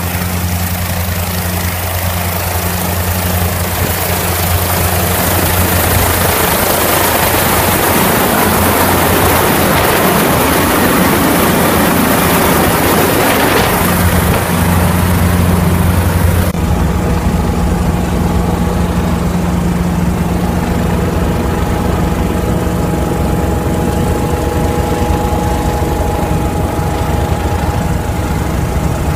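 Light helicopter's engine and rotor running on the ground: a loud, steady drone with a low hum. About sixteen seconds in the hiss drops away and the sound turns duller, with steady whining tones, as heard from inside the cabin.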